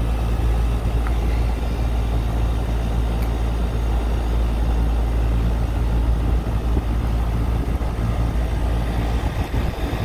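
3-ton ICP commercial air-conditioning unit running, its compressor and condenser fan giving a steady low hum with a rush of air, while it is being charged with R-22 refrigerant through the suction side.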